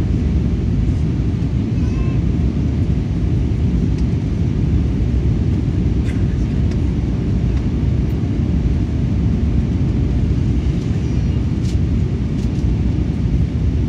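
Airbus A320 cabin noise during descent: a steady low rumble of the jet engines and airflow, heard from inside the cabin.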